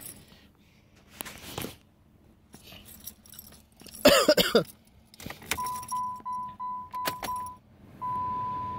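Car keys jangling and rustling as someone settles into the driver's seat, with a brief louder creak about four seconds in. From about halfway through, the 2013 Dodge Avenger's dashboard warning chime beeps repeatedly at one steady pitch, with a couple of sharp clicks, then holds a longer tone near the end, with the ignition on and the engine not yet started.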